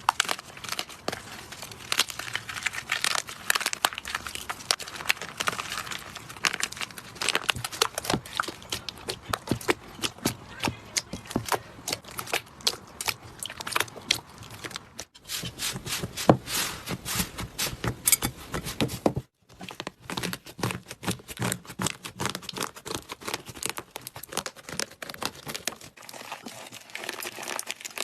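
Slime being squeezed and worked by hand: a dense run of sticky crackles, pops and clicks. The sound cuts out briefly twice about halfway through.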